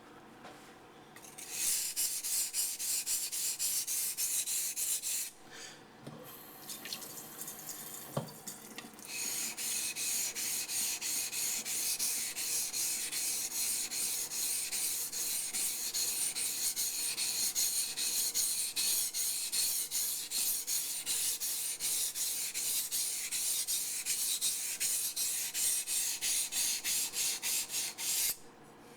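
Yanagi knife blade being stroked back and forth on a wet waterstone, a quick, even scraping rhythm. It starts about a second and a half in, breaks off for a few seconds with a single knock, then runs on steadily and stops just before the end.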